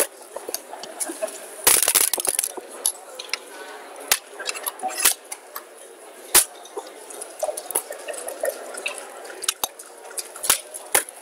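Backgammon checkers and dice clicking on the board as moves are played: sharp separate clicks throughout, with a dense run of rattling clicks about two seconds in.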